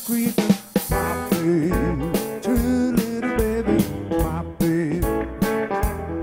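Live blues band playing an instrumental passage: drum kit, electric guitar and electric keyboard, with a lead line that bends and wavers in pitch.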